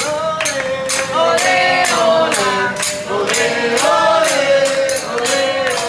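Singing voices over a steady percussive beat of about two strikes a second, like clapping or a tambourine keeping time.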